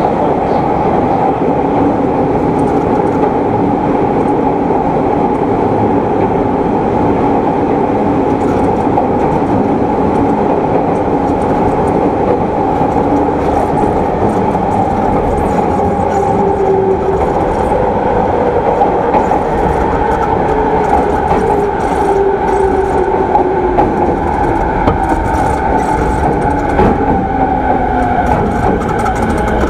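Running noise of an E217-series EMU motor car (MoHa E216) heard inside the car: a steady rumble of wheels on the rails. From about halfway through, the traction motor whine falls in pitch as the train slows.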